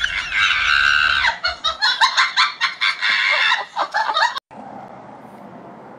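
A man laughing hysterically in shrill, high-pitched cackles, which break into rapid bursts of laughter; it cuts off abruptly after about four seconds, leaving only a faint steady hiss.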